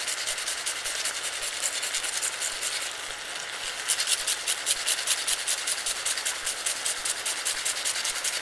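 Thick maple and cinnamon sauce reducing over rice in a hot pan, crackling with a steady, fast run of small pops that grow a little louder about four seconds in.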